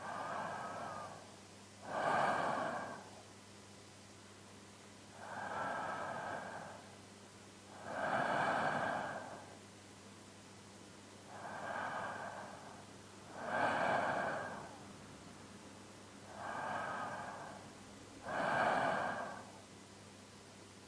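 A man's slow, even sleep breathing close to the microphone: four breaths, each a softer sound followed by a louder one, repeating about every five and a half seconds.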